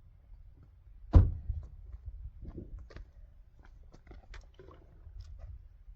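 A single heavy thump about a second in, followed by scattered small clicks and rustles of gear being handled.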